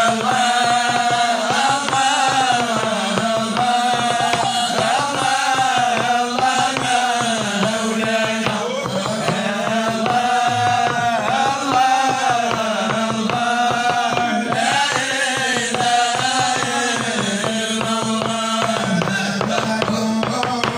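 Men chanting a Sufi madih (religious praise song) together through microphones, the melody rising and falling in long phrases over a low held note. A quick rhythmic tapping runs underneath.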